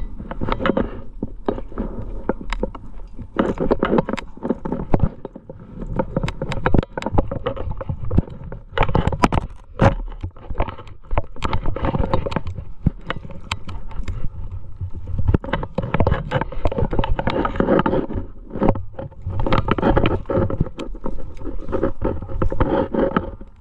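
Climbing rack of metal carabiners and cams clinking, knocking and scraping against the rock as the climber moves, in an irregular run of clicks and rubs.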